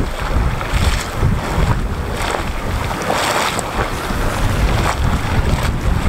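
Wind buffeting the microphone with a gusting low rumble, over the gurgle and splash of a boiling mud pot bubbling up in a geothermal pool.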